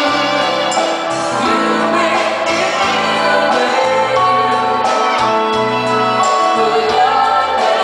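Live band music with singing: a dance band playing with vocals over a steady beat, heard in a large hall.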